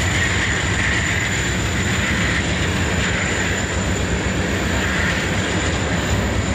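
A freight train of black tank cars rolling past close by: a steady rumble of steel wheels on the rails, with a faint steady high whine above it.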